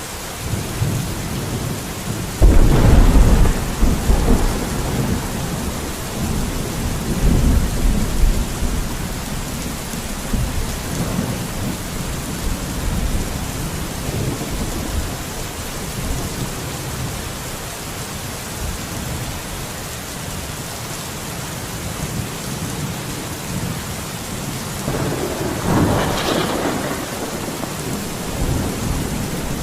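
Steady rain with thunder: a loud rolling rumble breaks in about two and a half seconds in and dies away over several seconds, and a second, shorter rumble comes near the end.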